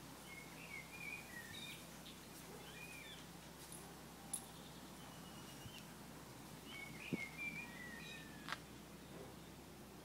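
Faint, high chirping animal calls in several short runs of warbling, gliding notes, with a few soft clicks between them.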